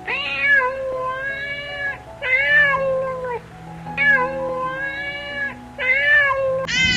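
Domestic cat meowing repeatedly, a run of drawn-out, wavering meows, with soft background music under them.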